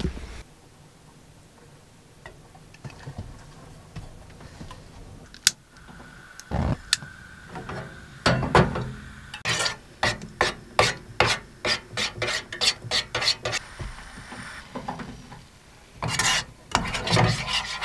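Spoon stirring custard in a small metal saucepan on a gas hob, scraping and knocking against the pan. A run of quick, even strokes comes about three a second for some four seconds, with a louder flurry of stirring near the end.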